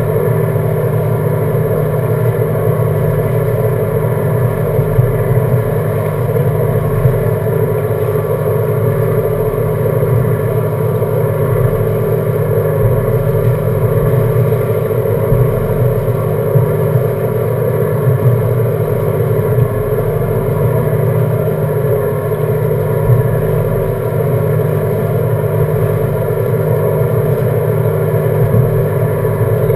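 Seven Marine 557's supercharged GM 6.2-litre V8 outboard idling steadily, close up, with water washing past the hull.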